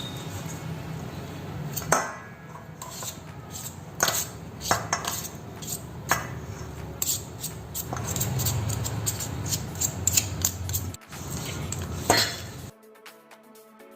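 Kitchen utensils clinking and knocking against dishes, a dozen or so sharp knocks spread irregularly, cutting off suddenly near the end.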